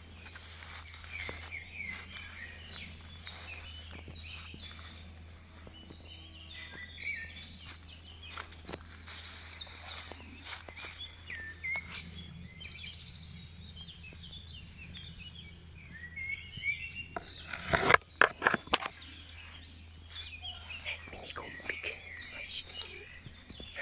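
Songbirds singing outdoors, several overlapping songs with chirps and fast high trills, over a low steady hum. A few loud knocks close together come about two-thirds of the way through.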